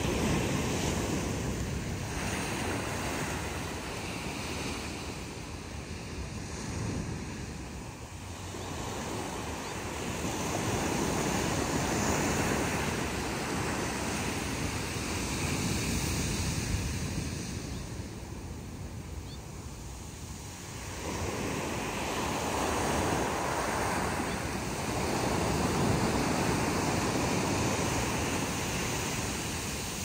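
Small ocean waves breaking and washing up a sandy beach, the surf swelling and easing in long surges with short lulls between them.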